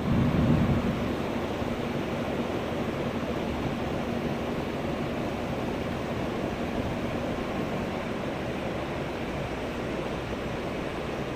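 Steady rushing noise of ocean surf and wind.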